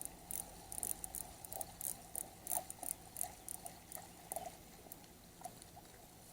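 Faint, irregular light ticks and small splashy pats as a freshly hooked bluegill is reeled in and landed, thinning out near the end.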